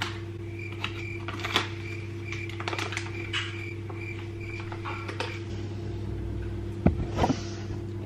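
Steady low electrical hum of a running kitchen appliance, with faint high pips about three a second for the first five seconds. Light rustles and clicks of handling are scattered through it, and a couple of louder knocks come about seven seconds in.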